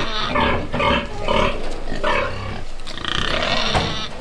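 Pigs squealing and grunting: a run of short calls, then a longer squeal near the end.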